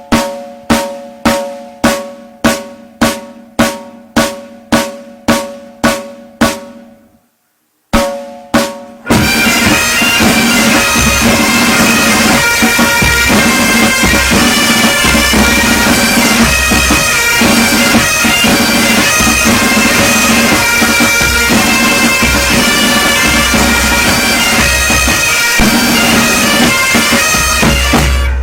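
Military pipes and drums band: about two slow, evenly spaced drum beats a second, each ringing out, then a brief pause and one more beat, after which the bagpipes strike in with their steady drone and play on with snare and bass drums.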